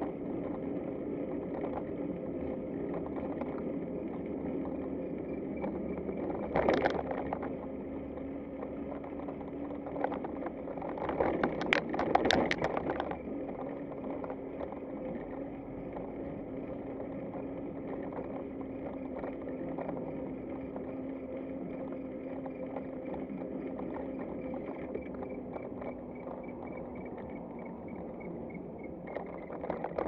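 Steady rolling and running noise of a Nihola front-box cargo bike ridden along a paved path, with a constant hum. A brief burst of clatter comes about seven seconds in, and a longer one runs for about two seconds around the middle.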